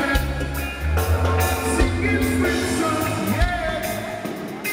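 Live rock band playing with bass, drums and a singing voice; the sung line bends in pitch about three and a half seconds in.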